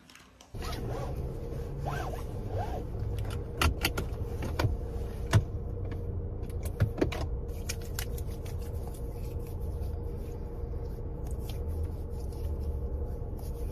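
Inside a car with the engine running: a steady low rumble with a faint steady hum. A few sharp clicks and taps come in the middle.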